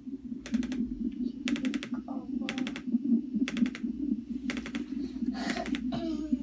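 Wallach Fetal2EMR fetal heart monitor playing the baby's heartbeat through its Doppler speaker: a steady pulsing whoosh at a fetal heart rate of about 129 beats a minute, with a cluster of sharp clicks about once a second.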